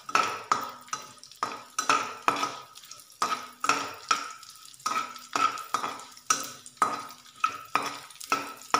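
Metal slotted spatula scraping and tapping against a nonstick kadai while stirring cashews and almonds frying in hot ghee. The strokes come steadily, about two and a half a second, each ringing briefly off the pan.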